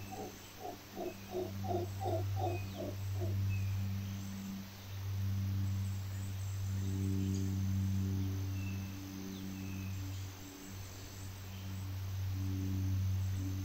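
Mantled howler monkeys calling. For about the first three seconds it is a quick pulsed series, about four pulses a second; after that come long, deep roars that swell and fade in waves. Faint bird chirps sound above them.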